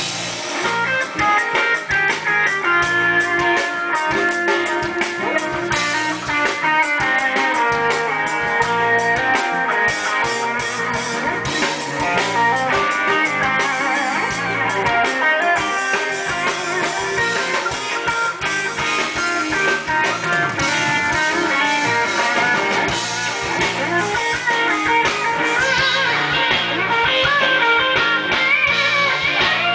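Rock band playing live, an instrumental passage with no singing: electric guitar lines over drums and bass. The cymbals drop out near the end.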